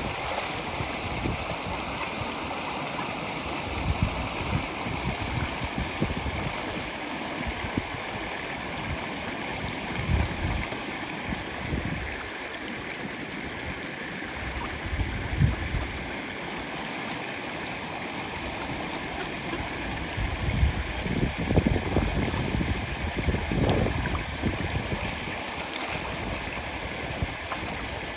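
Shallow stream rushing steadily over rapids, with several brief louder low rumbles, most of them near the end.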